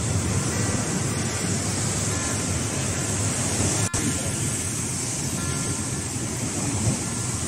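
Heavy ocean surf breaking and washing among rocks, a steady rushing noise, with a brief dropout about four seconds in.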